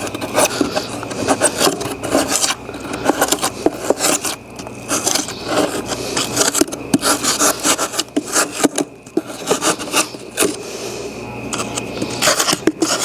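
Carving knife scraping and cutting into the rigid foam of a deer mount form, a fast irregular run of rasping strokes with small sharp cracks as chunks pop out.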